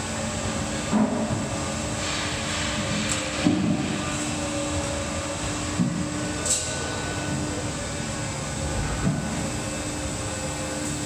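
Cooperage barrel-hooping machinery running with a steady hum, with a few short knocks and clanks scattered through it, about five in all.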